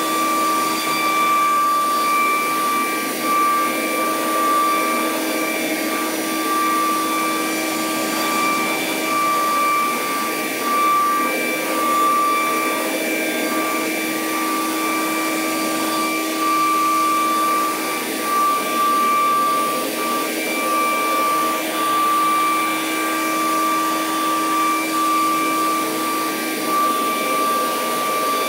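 CNC router spindle whining at a steady high pitch as a surfacing bit flattens an MDF spoilboard, over a steady rushing noise. The whine dips briefly now and then.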